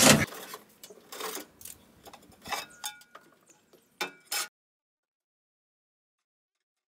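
Metal fire pit parts clinking, knocking and scraping as they are handled and set down on a metal truck liftgate, with a few short metallic rings. About four and a half seconds in the sound cuts out to dead silence.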